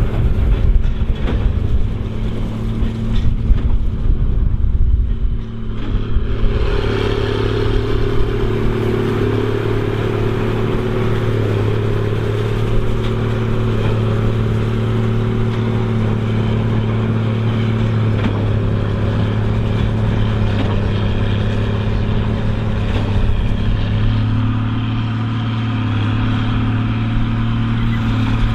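Case 2294 tractor's diesel engine running at a steady pull while driving a Massey Ferguson 190 big baler. Heavy low buffeting covers the first six seconds, then the engine and baler sound fuller and brighter.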